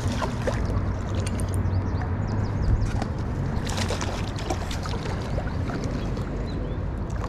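Steady rush of flowing river water, with scattered small clicks and knocks.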